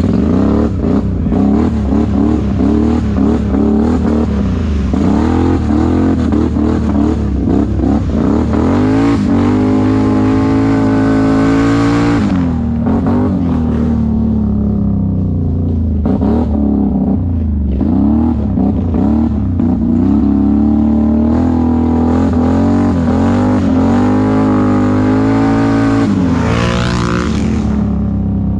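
ATV engine running under load on a dirt trail, its revs rising and falling with the throttle. The pitch climbs, then drops sharply about twelve seconds in, and rises again just before the end.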